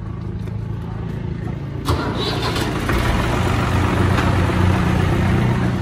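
New Holland Ghazi tractor's diesel engine running, with the engine note rising and getting louder about two seconds in as the tractor is driven off.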